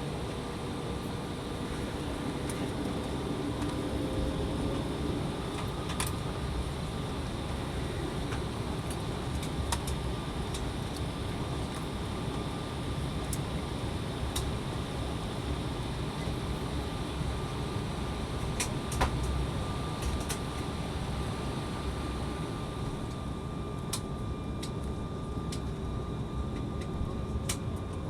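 Steady cabin hum of an Embraer ERJ-175's GE CF34 turbofans at low ground power before takeoff, heard from inside the cabin, with a faint steady high tone and a scattering of small clicks and rattles.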